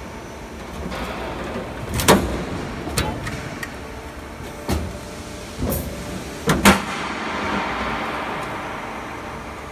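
Sheet-metal roll forming line for sound barrier panels running, with a steady machine hum and about half a dozen sharp metal clanks from the punching and feeding of the steel, two of them close together about two thirds of the way in.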